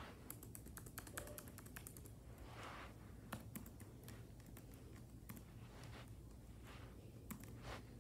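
Faint typing on a Chromebook laptop keyboard: a quick run of key clicks about half a second in, then scattered single keystrokes.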